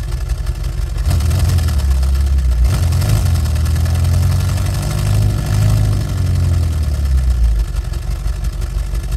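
Synthesized engine sound modelled on the Ford GAA V8 tank engine of the M4A3 Sherman. It idles, is throttled up about a second in and held at higher revs with the pitch wavering, then eases back toward idle near the end.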